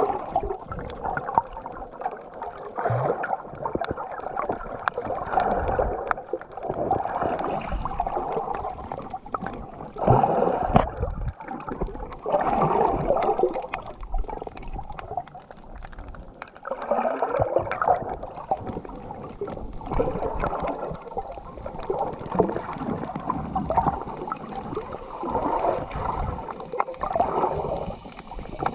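Muffled water sound picked up by a submerged camera: sloshing and gurgling that swells and fades every couple of seconds, with small scattered clicks.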